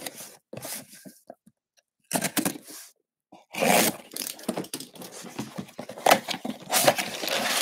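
A cardboard box being opened by hand: cardboard and packing tape scraping and rustling in a few short bursts, then a longer stretch of scraping and handling with some sharper knocks.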